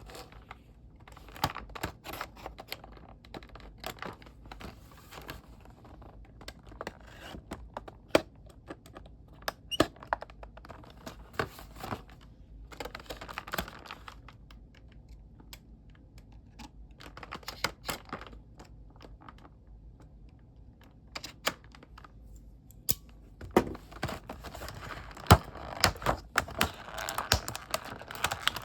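Hands handling action-figure packaging: irregular clicks and taps on cardboard and plastic, with stretches of rustling and crinkling near the middle and toward the end.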